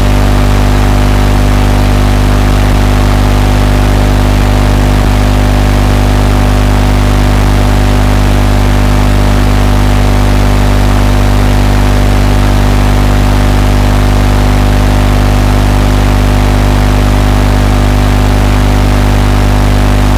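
Loud, unchanging electrical buzz: a low hum with many evenly spaced overtones over a steady hiss, as carried on the audio of an FPV goggles' DVR recording from the quad's video link.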